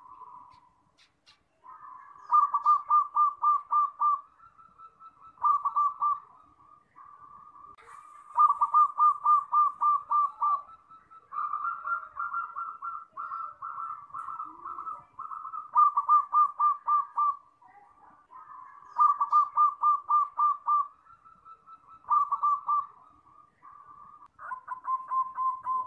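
Zebra dove (perkutut) cooing: a run of rhythmic phrases, each a quick string of pulsed notes at one pitch, repeating every few seconds with short pauses between.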